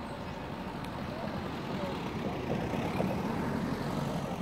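A motor vehicle's steady low rumble that swells about halfway through and eases again near the end.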